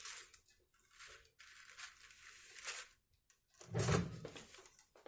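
Plastic film on a frozen dinner tray crinkling and rustling as the tray is handled, with a thump about four seconds in.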